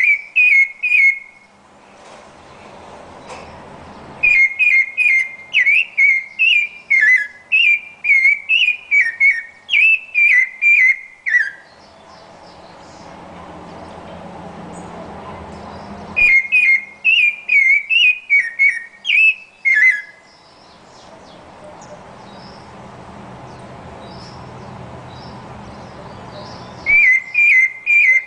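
Rufous-bellied thrush singing: bouts of clear, whistled phrases of about two notes a second, broken by pauses of several seconds. In the pauses a low background rumble swells.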